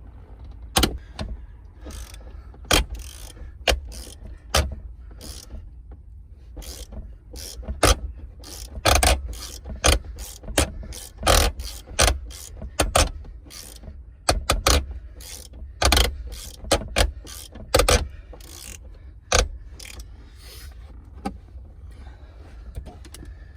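Socket ratchet clicking in irregular runs while loosening 15 mm seat bolts, over a steady low rumble.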